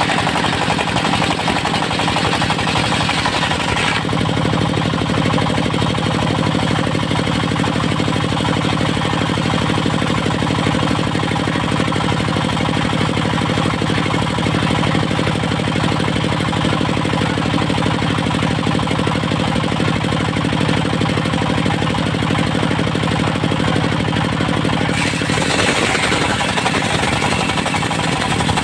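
Engine-driven portable circular sawmill running steadily, saw blade cutting Mindi wood. The sound turns lower and heavier about four seconds in and brighter again near the end.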